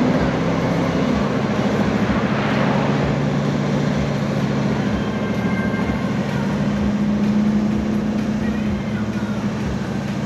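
Vehicle driving along a road with its top down: a steady engine drone and road noise, with wind buffeting the microphone in frequent low thumps.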